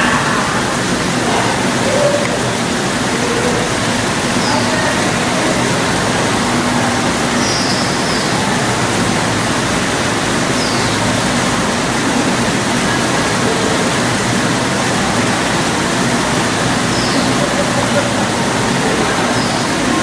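Steady splashing of a small rock waterfall, water falling over rocks into a pool. A few faint, short, high chirps slide downward at intervals over the water noise.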